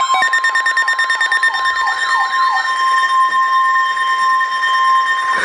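Emergency alert tone: a loud, steady single-pitch tone held for about five seconds, of the kind a NOAA Weather Radio sends before a warning message. For the first two and a half seconds a warbling, repeatedly sweeping alarm sounds over it and then fades out.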